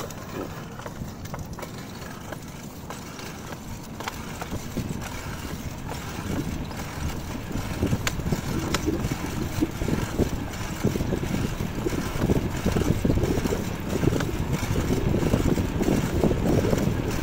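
Bicycle ride: wind rushing over the microphone and the bike rattling over the pavement, with scattered small clicks, growing steadily louder.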